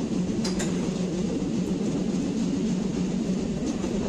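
Suburban electric train carriage running along the rails, heard from inside: a steady rumble.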